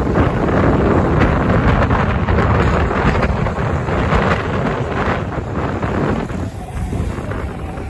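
Wind buffeting the microphone over the engines of Micro F2 racing cars running round an oval track, the engine note fading a little near the end.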